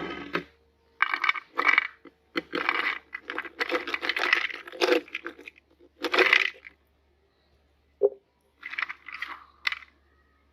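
Hard heart-shaped cookies clattering and clinking against the metal of a meat grinder, in irregular bursts with short pauses between them.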